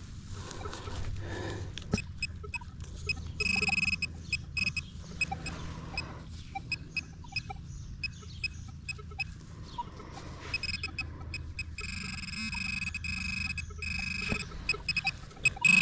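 Metal detector giving a steady high signal tone over a buried target, twice (about three and a half seconds in and again near the end), between the scrapes and clicks of digging in dirt. The target is a rusty iron nail.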